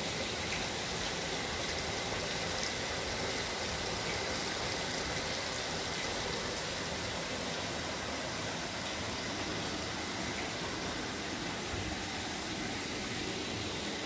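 Steady rush of stream water flowing through a narrow rock canyon.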